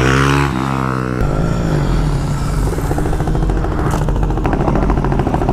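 Motorcycle engine revving with rising pitch, changing abruptly about a second in, then running steadily under throttle.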